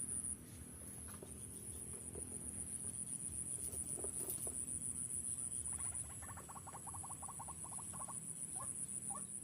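Insects calling in a steady, high-pitched pulsing drone. About six seconds in, a bird gives a rapid run of short chattering notes for about three seconds.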